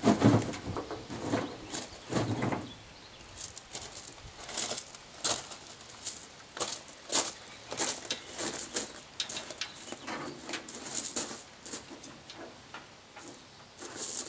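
Footsteps crunching on loose gravel and the handling of a boat's tow line, heard as irregular short crunches and clicks, with a couple of heavier dull knocks in the first few seconds.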